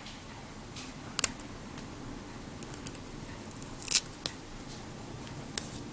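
Clear adhesive tape being handled and pressed around a fingertip: a few faint, short clicks and crinkles, with a slightly longer rasp about four seconds in.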